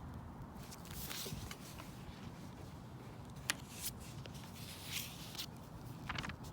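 Pen on paper and paper handling: a few short scratches and rustles, with one sharp click about halfway through.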